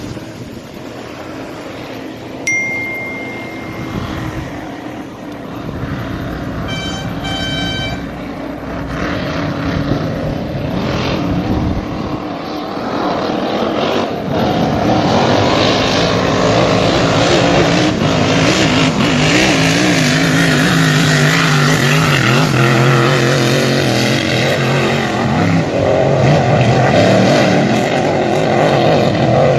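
Racing powerboat engines running at high speed in a steady drone that grows louder through the second half as the boats pass. Near the start there is a brief high chime, then a quick run of electronic tones.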